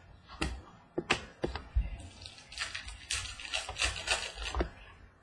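Prizm World Cup soccer trading cards being flipped through by hand: several sharp card clicks, with a stretch of sliding, rustling card noise through the middle.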